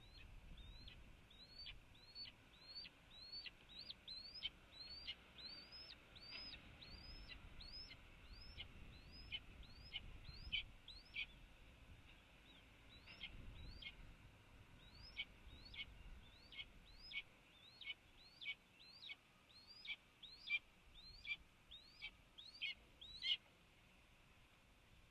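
A bird calling faintly in a long series of short, high notes, about two a second, each rising and then dropping sharply. There is a short pause about halfway through, and the calls stop shortly before the end.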